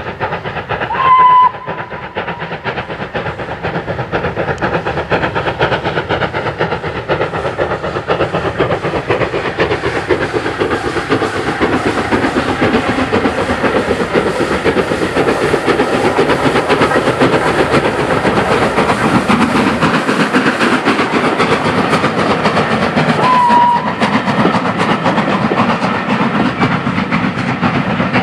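Great Northern Railway N2 class 0-6-2T steam tank engine working its train, its exhaust beating rapidly and steadily and growing louder through the middle. Two short whistle blasts sound, one about a second in and one near the end.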